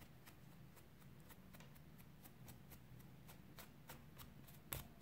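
Faint, quick scratching strokes of a comb being drawn through a fluffed-out cotton macramé-cord pompom, about four strokes a second, with one sharper click near the end.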